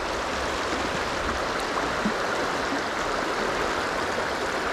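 Steady rushing of a shallow, fast river current running over shoals.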